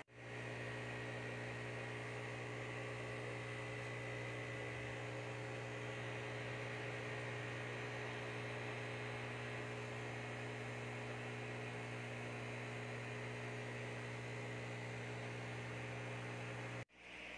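Aquarium air pump humming steadily under a constant hiss, running the tank's sponge filter. The hum breaks off abruptly shortly before the end.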